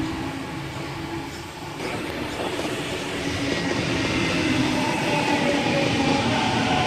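Double-deck electric suburban train running along the platform, its wheels and motors on the rails getting louder from about two seconds in.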